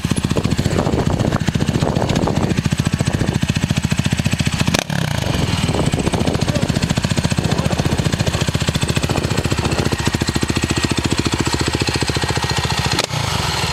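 Suzuki LTR 450 quad's single-cylinder four-stroke engine running steadily at low speed, with a fast, even beat.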